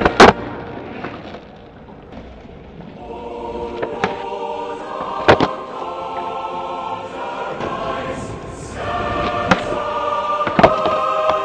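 Choral music, a choir singing held chords, with sharp wooden clacks of skateboard pops and landings on concrete about five times over it, the loudest right at the start.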